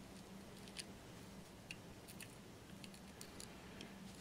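Faint, scattered small clicks and ticks of broken Lladró porcelain fragments knocking and grating against each other as a piece is wiggled into place by hand, over a low steady hum.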